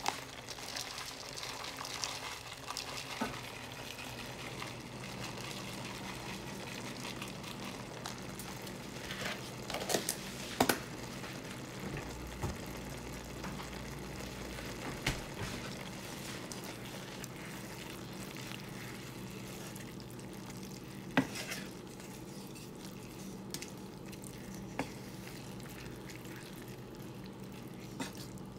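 Creamy spinach in a cream-and-parmesan sauce simmering in a skillet: a steady soft bubbling and sizzling, with a low steady hum beneath and a few sharp clicks now and then.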